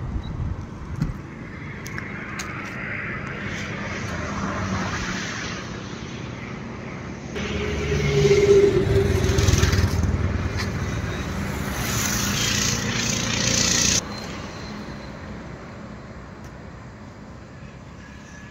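Ambient road traffic noise, a steady mix of engine and tyre sound from vehicles on the highway. It grows louder about seven seconds in and drops off suddenly about fourteen seconds in.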